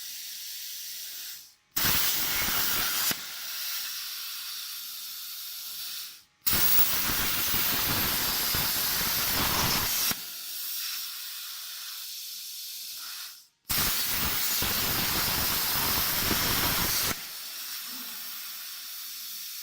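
CNC plasma torch cutting sheet metal: a loud steady hiss that comes in three stretches of a few seconds each, with a softer hiss between them and brief drop-outs just before each loud stretch.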